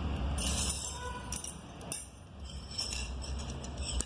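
Metal hand tools clinking and jangling against each other, a run of light, irregular metallic clinks with a brief ring about a second in.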